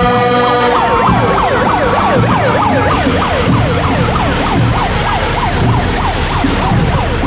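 Electronic siren on yelp, its pitch sweeping up and down about three to four times a second, with a horn blast held under it that stops about a second in. A faint high whine slowly rises in the second half.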